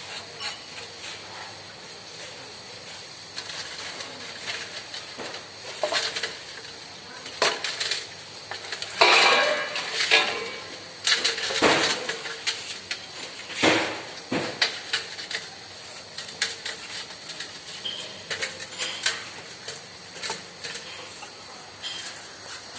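Metal tools and parts clinking and knocking at irregular intervals, with a denser clatter about nine seconds in.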